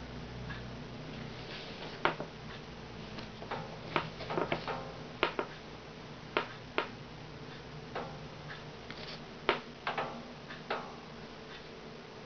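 Light, sharp clicks and taps at irregular intervals, about a dozen, from small objects being handled at a work surface. A low hum fades out about a second and a half in.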